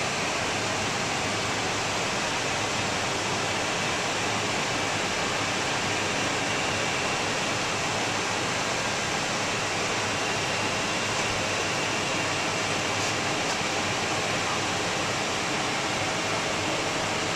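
Steady, even rush of ventilation airflow in a powered-up Boeing 757 cockpit, a constant hiss-like noise with no change in pitch or level.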